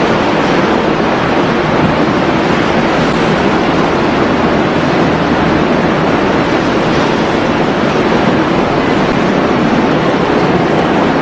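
Steady, loud rush of wind and churning sea water between two ships under way side by side, with a low hum underneath.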